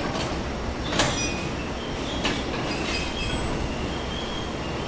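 JR-West 285 series sleeper train sets closing together slowly for coupling, over a steady low rumble. Several metallic clunks come through, the loudest about a second in, with brief high squeals from the creeping train.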